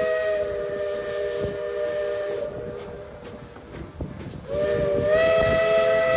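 Steam locomotive's chime whistle blowing two long blasts, each a chord of several notes sounding together, with a gap of about two seconds between them; the second blast lifts slightly in pitch soon after it starts. Scattered knocks and hiss from the moving train sound underneath.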